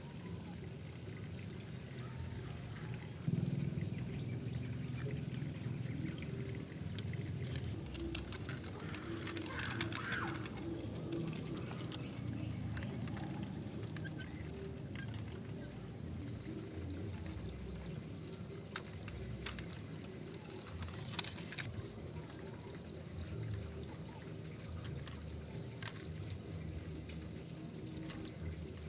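Toy truck wheels pushed by hand through loose, dry dirt, the soil shifting and grinding steadily under the tyres, with a few scattered small clicks.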